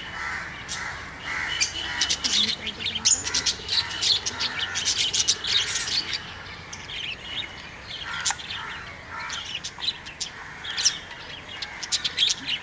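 A flock of small caged parrots, budgerigars and lovebirds, chattering with many quick, overlapping high chirps.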